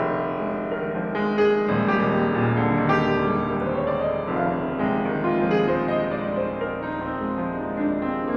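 Grand piano played solo in an improvised piece: flowing chords and runs with notes left ringing into one another, and a rising run about four seconds in.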